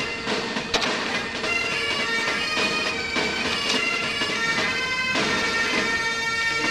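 Background music of sustained held notes over a continuous drone.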